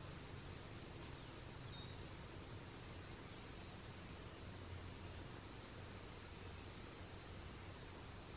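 Quiet woodland background with a faint, short, high chirp about every two seconds from a small bird, and one brief falling whistle near two seconds in.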